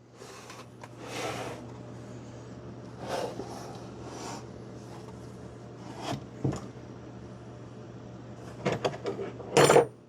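Hands-on workshop handling: a string of short knocks, scrapes and clanks of tools and metal motor parts being moved, with the loudest clatter near the end, over a steady low hum.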